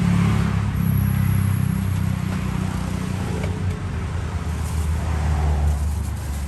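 A motor vehicle's engine running close by with a steady low drone, over general street traffic noise. The drone drops a little in pitch about five seconds in.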